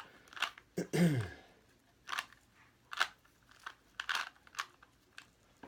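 Plastic puzzle cube being scrambled by hand: irregular sharp clicks and clacks of its layers turning, about two or three a second. A short vocal sound, falling in pitch, comes about a second in.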